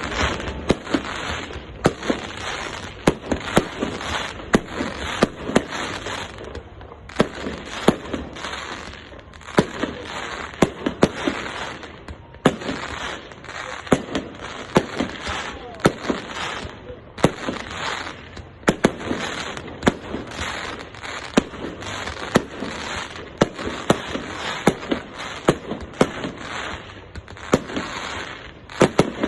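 Fireworks display: a dense, unbroken barrage of sharp bangs, several a second, over a continuous crackling background.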